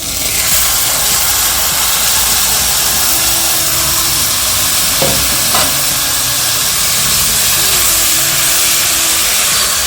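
A steady, loud hissing noise with faint music underneath.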